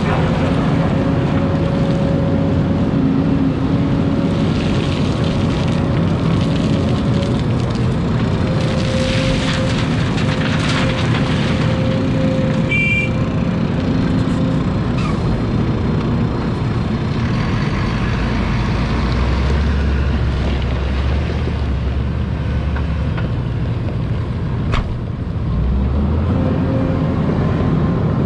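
Hidromek hydraulic excavator's diesel engine running under load, heard from the operator's cab, with the hydraulic whine coming and going as the boom, arm and bucket dig, swing and dump.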